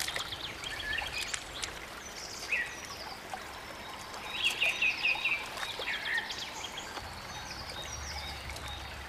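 Woodland birds singing in short chirping phrases, a cluster of the loudest about halfway through, over the steady rush of a small forest stream.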